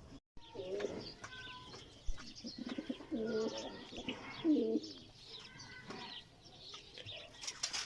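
Domestic pigeons cooing: several low, rounded coos with a few faint higher chirps between them.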